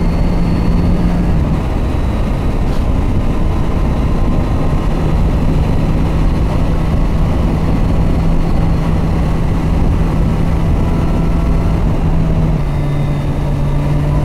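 Kawasaki Versys 1000 SE's 1,043 cc inline-four engine running at a steady pitch on the move, under a heavy wind rumble. The engine note fades briefly about a second and a half in, comes back, and drops slightly in pitch near the end.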